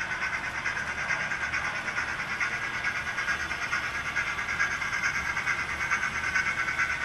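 Model train running on layout track: a steady whirring with a fast, even pulsing.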